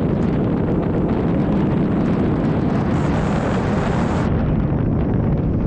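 Loud, steady rush of wind buffeting the microphone, with no clear engine tone.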